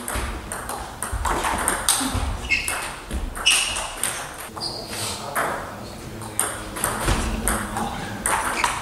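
Table tennis ball repeatedly clicking off the rackets and the table during rallies.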